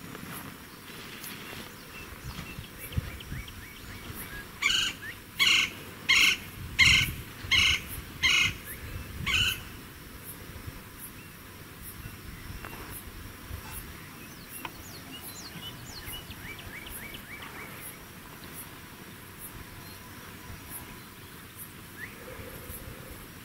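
Black-tailed prairie dog barking: a run of seven sharp calls about two-thirds of a second apart, starting about four and a half seconds in. Faint insect ticking and a few soft bird chirps sit behind it.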